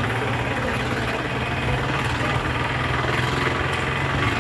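A vehicle's engine running with a steady low hum, mixed with road and wind noise, heard from on board the moving vehicle.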